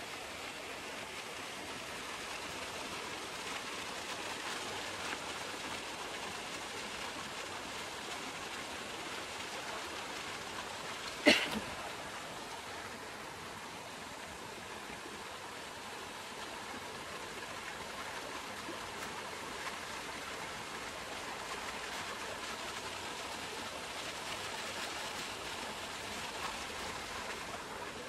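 Steady rushing of a rocky mountain stream, with a single sharp knock about eleven seconds in.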